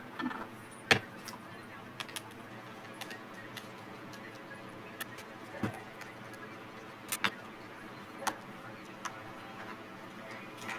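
Scattered small clicks and taps of tools and hair dryer parts being handled on a work surface, the loudest about a second in, over a steady low hiss.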